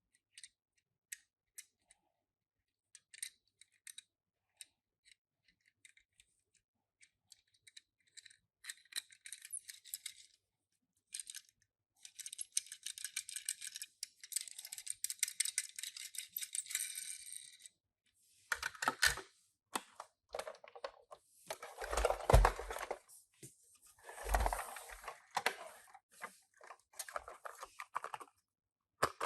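Small clicks, then stretches of light rattling and a few louder rustles near the end, from Tomica die-cast minicars and their packaging being handled.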